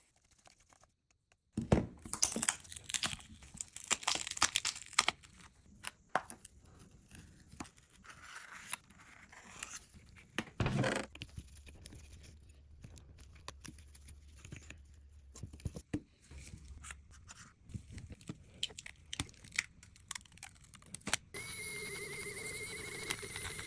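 Irregular handling noises: crinkling and tearing, light scrapes and clicks. Near the end a steady hum with a thin high whine starts.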